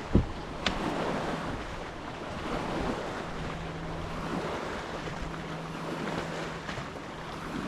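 Wake waves slapping and washing against a boat's hull, with wind buffeting the microphone. A low thump comes just after the start and a sharp click under a second in, and a low steady hum runs from about three seconds in.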